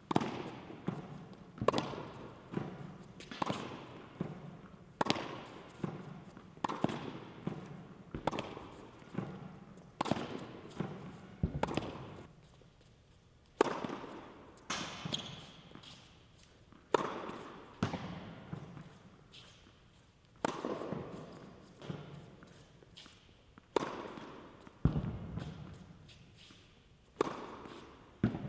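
Tennis ball struck by a racket and bouncing on an indoor hard court during a practice rally: a sharp pop every second or two, each ringing briefly in the echo of the hall.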